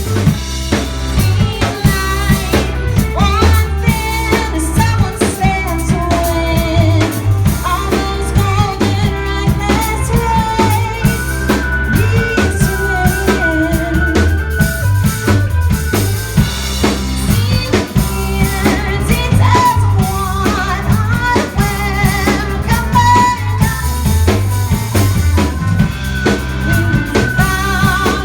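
A rock band playing live: a drum kit with kick and snare keeps a steady beat under bass, with a wavering lead melody on top.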